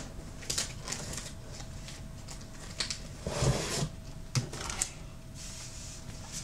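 Comic books being handled and stacked on a desk as one pile is swapped for another: light paper rustling and a few sharp taps, with a longer rustle about three and a half seconds in.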